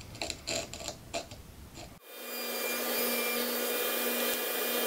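A marking knife scratches and ticks along a walnut board. About two seconds in, a table saw takes over, running steadily with its blade spinning in a crosscut sled, with a steady hum under the noise. This is the loudest part.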